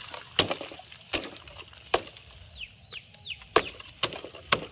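About six sharp snapping cracks spread through, with a quick run of short, falling, high peeps from a bird in the middle.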